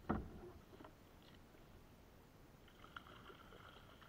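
A single sharp knock on a plastic Pelican kayak hull just after the start, made while a cod is handled on the angler's lap, then faint background hiss. From about three seconds in, a thin, steady, high tone comes in.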